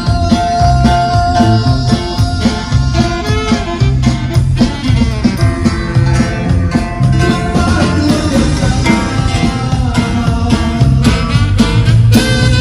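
Live band music with a prominent electric bass line under sustained melody instruments, and drums keeping a steady beat.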